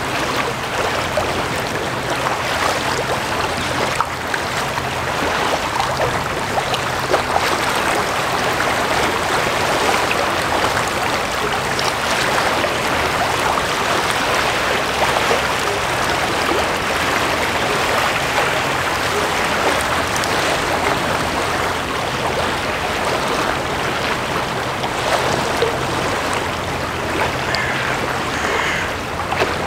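Water of the strait washing and splashing in a steady rush, with a faint low drone underneath.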